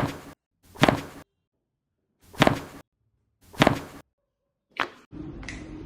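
Five sharp whacking strikes, one roughly every second, each dying away quickly, the last one weaker; they fit strokes given to the injured knee during bonesetting treatment. A steady low room noise starts near the end.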